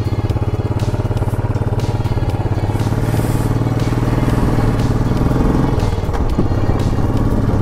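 Royal Enfield Classic 500's single-cylinder engine running as the motorcycle rides off, its exhaust beat pulsing steadily.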